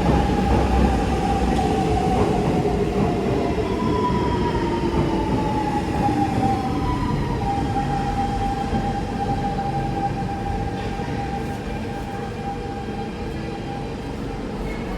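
Siemens C651 metro train slowing, with the whine of its GTO inverter traction drive falling slowly in pitch over the rumble of wheels on rail, fading a little as it comes to a stop.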